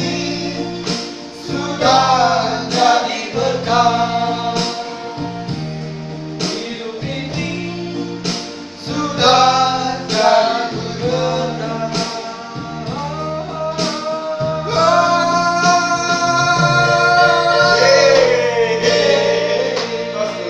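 A small group of men singing a gospel song together to keyboard accompaniment, with the chords changing about once a second. Near the end they hold a long final note.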